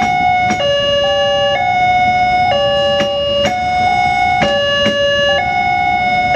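Two railway level-crossing warning sirens sounding at once and out of step, each switching back and forth between two tones about once a second, so the tones clash. There are sharp clicks at the tone changes.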